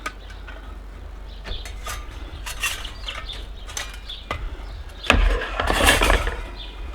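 Metal parts of a small flat-pack camp cooker clinking and knocking as they are handled and fitted together, with a louder stretch of rattling and scraping about five seconds in.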